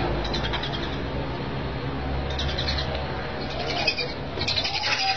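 Birds chirping in four short bursts of rapid high chirps, over a steady low hum.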